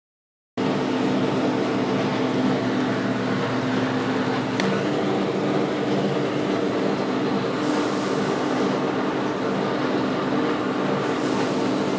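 Steady machine hum that starts about half a second in and holds level, with a faint click about four and a half seconds in.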